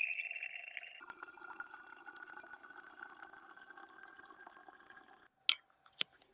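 Liquid being poured into a container, its pitch slowly rising as the vessel fills, stopping about five seconds in; then two sharp clicks about half a second apart.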